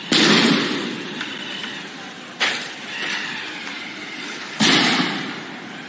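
Three loud blasts, about two and a quarter seconds apart, each sudden and trailing off over about a second, over a steady street din.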